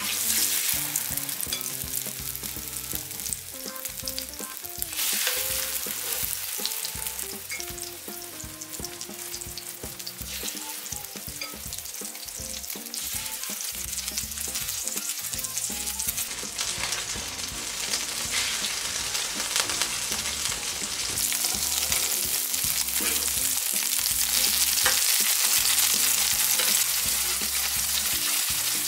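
Egg-battered pollack fillets sizzling and crackling in hot oil on a griddle pan. The sizzle starts suddenly as the first piece goes in and grows louder as more pieces are added.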